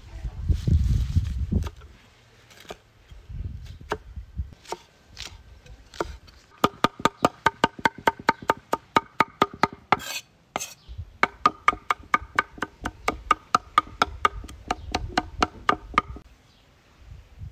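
A cleaver chops fresh basil on a wooden end-grain cutting board. A few heavier cuts come first, then two fast, steady runs of chops with a short break about halfway. Each stroke gives a sharp knock with a metallic ring from the blade.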